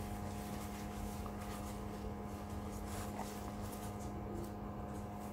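Faint rustling and handling as a shop towel wipes down a brake caliper slide pin, over a steady low hum.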